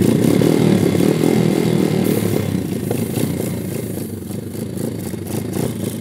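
Pitster Pro MXR 140 pit bike's single-cylinder engine running steadily on butane gas fed from a bottle instead of gasoline. It runs evenly, a little quieter around four seconds in, then picks up again near the end.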